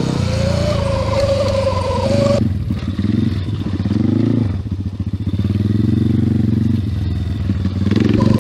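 Petrol pit bike engine, a Thumpstar TSK 141E's 140cc single-cylinder, revving up and falling back several times while ridden on dirt. For about the first two and a half seconds a high steady whine, the electric dirt bike's motor, sits over it, then cuts off suddenly.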